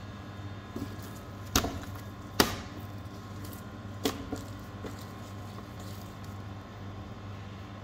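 Sharp knocks of a fillet knife and monkfish tail being handled on a plastic cutting board, three loud ones in the first half and a few lighter taps, over a steady low machine hum.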